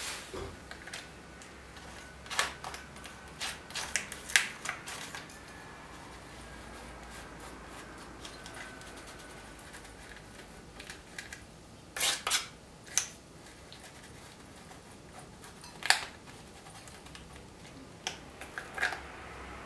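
Small metal palette knife and thin plastic stencil being handled on a painting board: scattered clicks, taps and short scrapes, the loudest a quick double click about twelve seconds in and a sharp one about sixteen seconds in.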